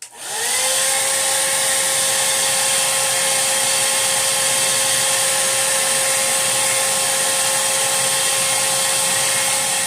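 Hair dryer switched on, its motor spinning up to speed in the first half second, then blowing steadily with a constant whine. It cuts off suddenly near the end.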